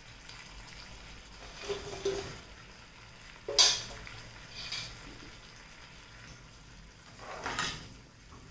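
Onions and capsicum frying faintly with a little water in a frying pan. About three and a half seconds in there is a sharp clatter as the fried chicken pieces are tipped in from a steel plate, and near the end a slotted spatula scrapes and stirs them in the pan.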